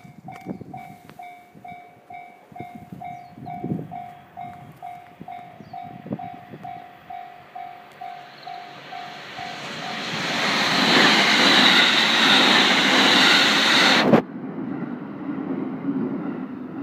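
Japanese level-crossing warning bell ringing in steady pulses, about two a second, as a Tōkaidō Main Line train approaches. About ten seconds in, the train passes with a loud rush of wheel and track noise that cuts off abruptly near fourteen seconds, leaving a quieter rumble.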